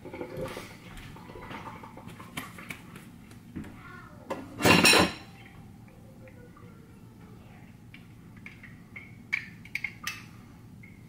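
Kitchen clatter of dishes and utensils: scattered knocks and clinks, a brief loud rush of noise about halfway through, and a few sharp clinks near the end.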